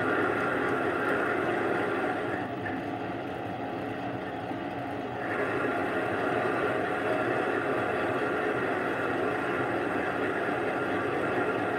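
Small benchtop lathe running, its spindle turning a round bar during a taper cut: a steady motor and gear whine. It drops in level for a couple of seconds about two and a half seconds in, then picks back up.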